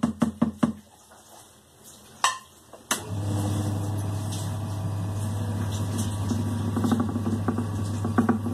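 Electric dough-kneading machine switched on with a click about three seconds in, then its motor running with a steady hum as it starts mixing flour, oil and liquid in the bowl. Before that, a quick run of light taps dies away within the first second.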